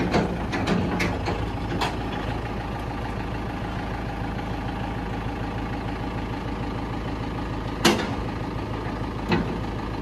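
Farm tractor's diesel engine running steadily at idle, with a few sharp knocks early on and two louder knocks near the end.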